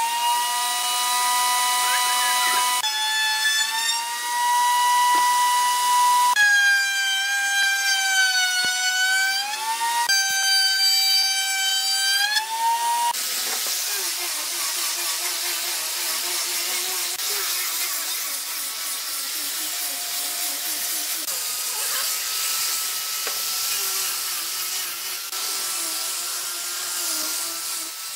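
High whine of electric power-tool motors working wood, in several stretches that switch pitch abruptly every few seconds, the pitch sagging briefly under load. From about halfway in, a rougher, noisier cutting sound with only a faint whine.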